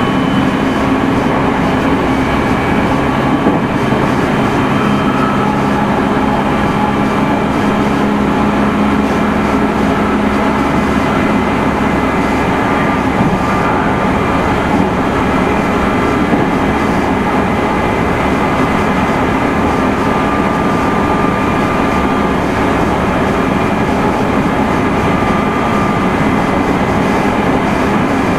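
Meitetsu 3100 series electric train running along the line, heard from inside the car: a steady rumble of wheels on rail with the whine of the traction motors. A low steady hum fades out about twelve seconds in.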